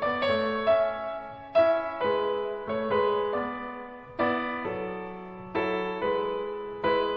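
Gentle background piano or electric-piano music, chords struck every half second or so and each left to fade.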